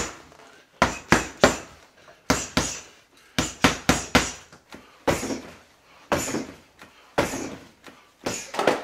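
Boxing-gloved punches landing on home-made punching bags and a spar bar: sharp thwacks in quick combinations of two to four blows, then single blows spaced about a second apart.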